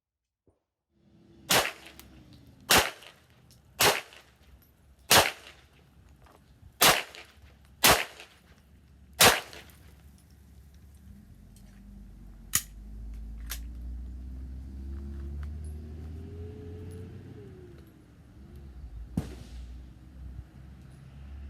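Pistol shots: seven sharp 9 mm handgun cracks fired at a steady pace about a second apart. After them come a couple of fainter shots and a low rumble that slowly rises and falls in pitch, with one more shot near the end.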